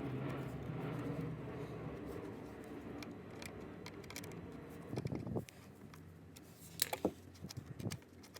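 A steady low engine drone, like a vehicle or aircraft in the distance, fading away about five seconds in, followed by a few sharp clicks and knocks.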